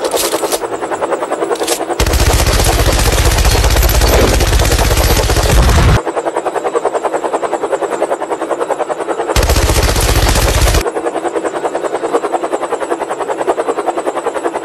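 Machine-gun fire sound effect: a fast, steady rattle of automatic fire, growing louder and fuller for about four seconds starting around two seconds in and again briefly around ten seconds.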